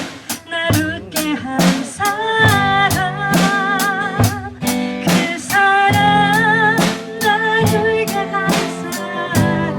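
Background music: a song with a singing voice over guitar and a drum kit keeping a steady beat.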